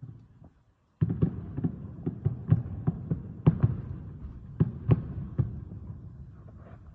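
Aerial fireworks shells bursting in a rapid volley: a dozen or so booms over a continuous rumble, starting suddenly about a second in and tapering off toward the end.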